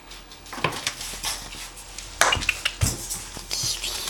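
Scattered light knocks and clatters, the sharpest a little past halfway through, with rustling in between.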